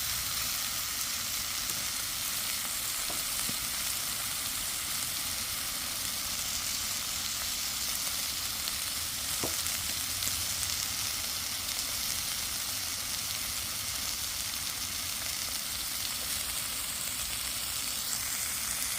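Beef steaks (top blade and chuck eye roll) sizzling steadily as they cook over high heat, with a couple of faint ticks.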